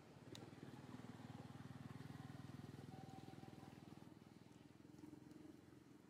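A faint engine hum with rapid even pulsing. It swells about a second in and fades toward the end. There is a single sharp click near the start.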